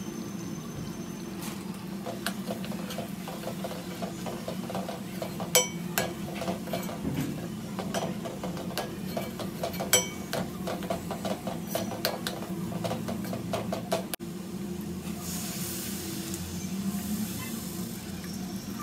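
A spoon stirring food in a metal pan, clinking and scraping in a run of quick clicks over a steady low hum. Two clinks near 5.5 and 10 seconds are louder. After a break about 14 seconds in, there is a short stretch of sizzling hiss.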